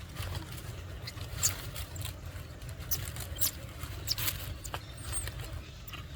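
A baby monkey gives a few short, high squeaks over a steady low rumble.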